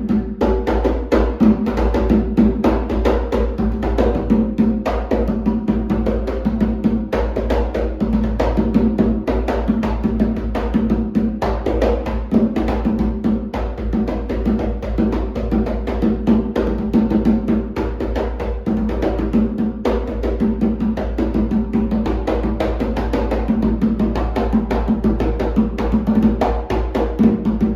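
Rumpi atabaque, a tall Afro-Brazilian hand drum with an angelim-wood body and a goatskin head, played in a fast, continuous rhythm of strokes with a ringing tone.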